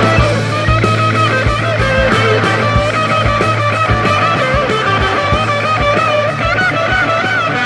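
Rock music with a melodic electric guitar lead over bass and a steady drum beat.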